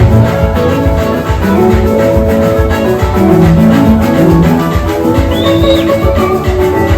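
Loud gospel band music with a steady beat and sustained chords.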